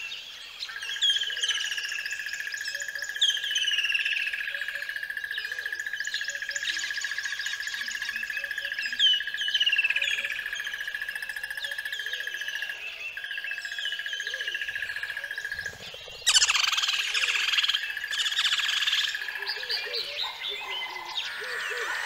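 Birds chirping, with short falling chirps repeating about once a second over a steady high-pitched trill. About sixteen seconds in the sound changes abruptly to a louder, denser chorus of chirps.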